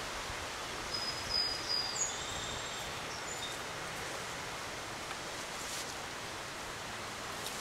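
Steady outdoor hiss of wind and rustling leaves, with a few short, high bird chirps between about one and two seconds in.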